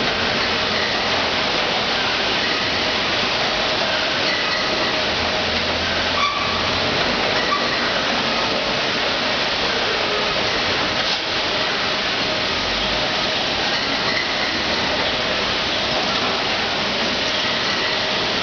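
Loud, steady machinery noise of a factory packaging line: an even rushing hiss with faint steady tones in it, and a couple of light knocks about six and eleven seconds in.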